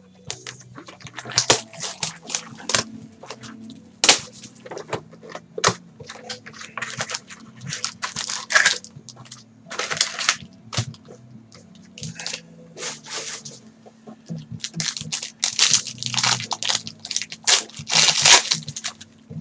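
Cardboard baseball card box being opened and a foil card pack wrapper crinkling and tearing: a dense, irregular run of crackles and rustles, thickest near the end.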